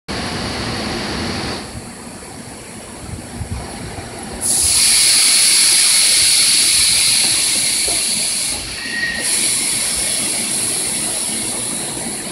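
Tokyo Metro 02 series subway train standing at an underground platform, with a loud steady high hiss that starts about four seconds in, breaks off briefly near nine seconds and resumes.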